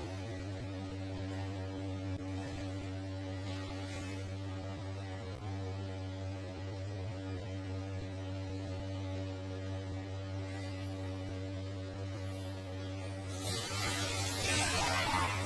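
Steady electrical mains-type hum with a stack of steady overtones. A rush of hiss-like noise comes in near the end.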